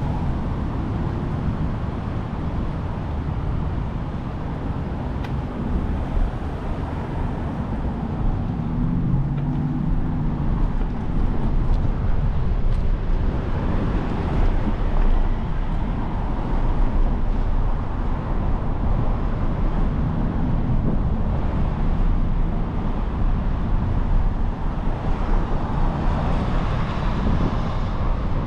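Steady rushing wind and road noise while riding a bicycle, with a motor vehicle's engine hum rising briefly at the start and again about eight to ten seconds in.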